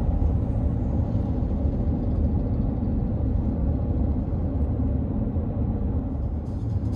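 Steady low rumble of tyre and road noise inside a car's cabin, cruising along an expressway.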